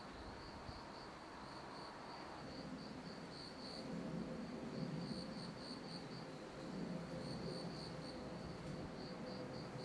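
Crickets chirping in a steady pulsing rhythm, about three chirps a second, over a faint low rumble that grows a little louder a couple of seconds in.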